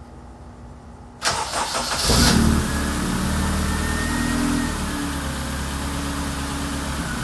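Honda K24 2.4-litre inline-four in a 1990 CR-X cranking about a second in, catching with a brief rev flare, then settling into a steady idle.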